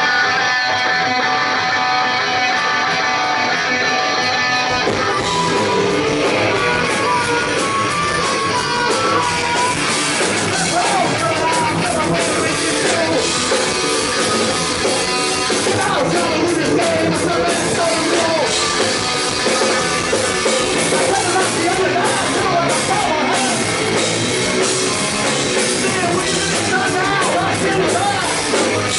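Punk rock band playing live. An electric guitar plays alone for about the first five seconds, then drums and bass come in and a man sings over the full band.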